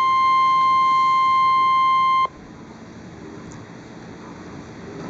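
NOAA Weather Radio warning alarm tone, the single steady 1050 Hz tone that signals a warning message is about to follow. It cuts off abruptly about two seconds in, leaving a faint steady radio hiss.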